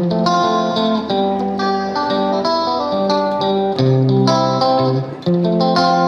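Background music of plucked guitar, a steady flow of picked notes and chords.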